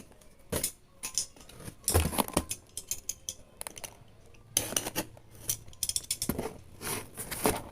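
A blade cutting and scraping at a parcel's packaging, in irregular short scratchy strokes and sharp clicks, with a cluster of strokes about two seconds in and a denser run from about halfway to the end.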